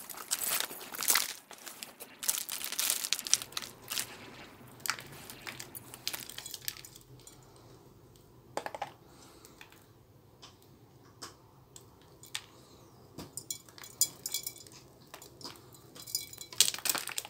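Gritty soil mix crunching and spilling as a small ficus root ball is crumbled and loosened by hand, grains falling onto cardboard. Dense rustling and crunching in the first few seconds, then sparse crunches and ticks, with another flurry near the end.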